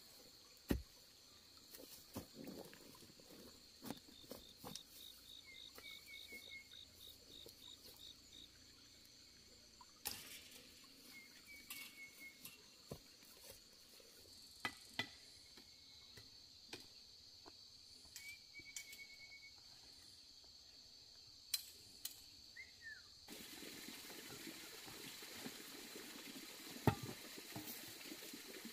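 Faint rural ambience: a steady high insect drone, with short chirping calls now and then and scattered knocks and scrapes of a hoe working soil. The background grows louder near the end.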